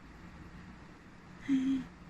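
Steady low wind noise from the tornado-driven storm. About one and a half seconds in comes a short, slightly falling voiced exclamation from a person.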